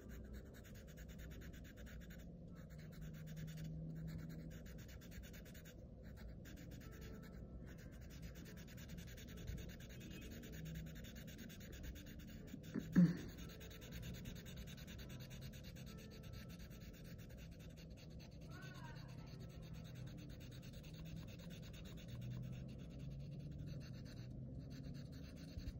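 Sharpie felt-tip marker rubbing and scratching on paper as black areas are coloured in, faint. A single sharp knock about halfway through.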